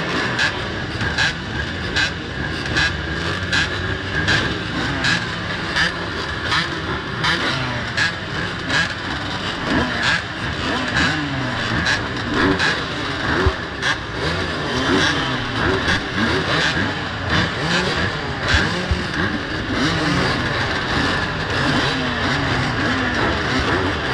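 Off-road dirt bike engine revving up and falling off over and over as the throttle is worked, with frequent short knocks and rattles over a steady rush of noise.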